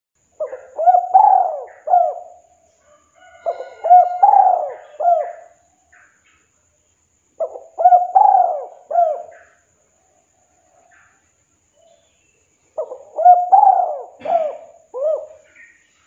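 Spotted dove cooing: four phrases of several quick coos each, separated by pauses of a second or more, in the song type that keepers call 'kuk 2'.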